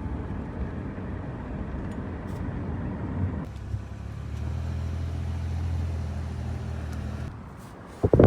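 Car running: a low, steady engine and road rumble. A steady low hum sets in about three and a half seconds in, and the sound fades down near the end.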